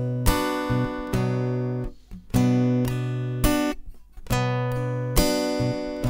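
Acoustic guitar played in a 'бой' strumming pattern: a thumb bass note on the fifth string, then down strums with the index finger and the whole hand. The phrase repeats about every two seconds, with a brief muted break between repeats.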